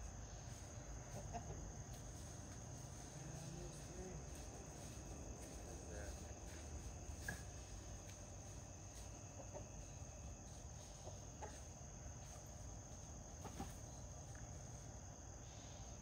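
Backyard chickens clucking faintly now and then, with a steady high insect chirr underneath.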